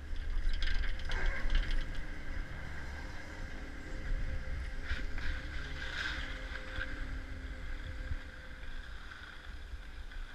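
Skis sliding and scraping on packed snow, with wind buffeting the action camera's microphone. The scraping is louder about a second in and again around five to six seconds in, and a faint steady whine sits underneath.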